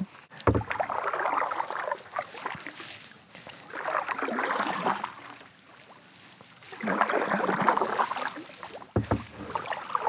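Canoe paddle strokes through calm lake water: three long swishing pulls a few seconds apart, with a dull low knock near the start and another near the end.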